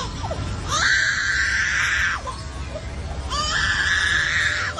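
Lyrebird mimicking an animal screaming in distress: two long, harsh screams, each starting with a rising squeal, over a steady low rumble.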